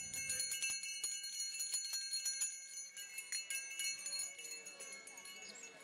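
High chimes tinkling, many light strikes ringing together, thinning out and fading over the last couple of seconds.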